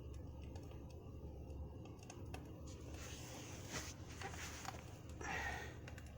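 Campfire crackling: a low steady rumble with small scattered crackles and pops, plus soft breaths about three and five seconds in.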